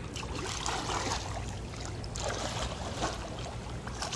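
Pool water splashing and sloshing as a child swims a few strokes, with stronger splashes about half a second in and again about two seconds in.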